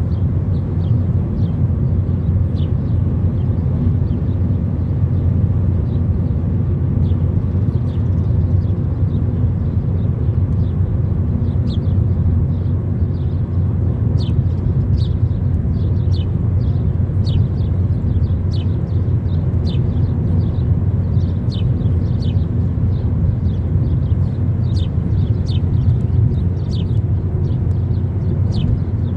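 Steady low rumble of a car driving at highway speed, engine and road noise. Many faint, short high ticks are scattered through it.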